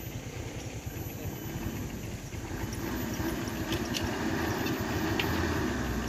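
Diesel truck engine running under heavy load, getting louder from about halfway through as the truck is forced up a slope.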